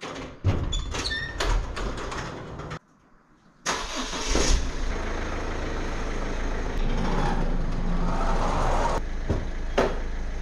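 A metal garage door clattering and squeaking as it opens. Then, after a short break, a car engine idling steadily.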